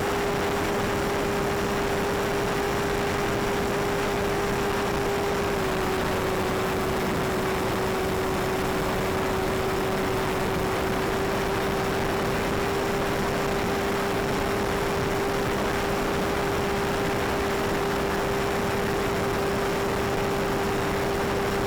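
Electric pusher motor of a Bixler RC plane running at a steady throttle, heard from on board as a constant whine over a rush of air and hiss. The pitch drops slightly about five and a half seconds in.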